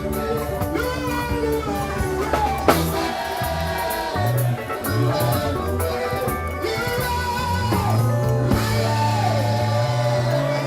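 Gospel praise music played by a band, with guitar over a steady bass line and a drum kit.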